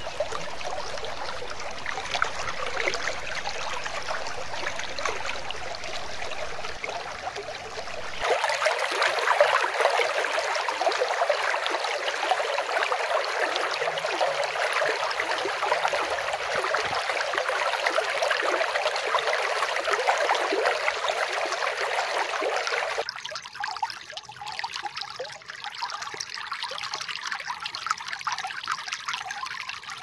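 Flowing water of a stream or small falls, a steady splashing rush. It changes abruptly twice: louder and brighter about eight seconds in, then quieter and thinner about twenty-three seconds in.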